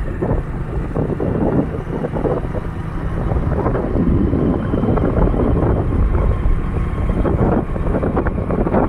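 Wind buffeting the microphone of a camera riding on a moving vehicle, with the rumble of the vehicle and its tyres on the road underneath.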